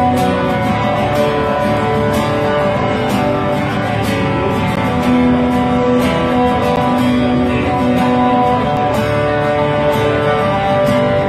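Acoustic guitar played live, chords strummed steadily in an instrumental passage without singing.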